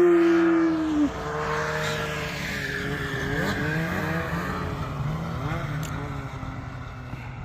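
A long drawn-out shout, falling in pitch, ends about a second in. Then snowmobile engines run steadily, their pitch rising and falling a few times as the sleds rev.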